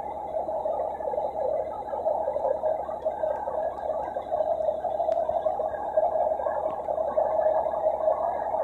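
Fire engine running steadily at close range, an even mechanical drone with no break or change.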